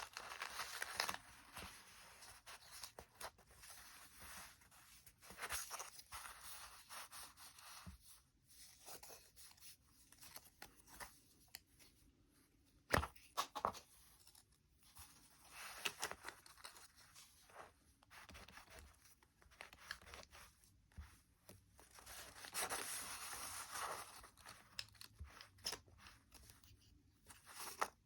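Paper being folded and creased by hand: irregular soft rustling and crinkling, with one sharp snap about halfway through and a longer rustle near the end.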